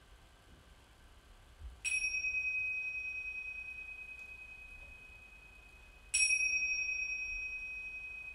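Tingsha cymbals struck together twice, about four seconds apart. Each strike rings a clear high tone that fades slowly.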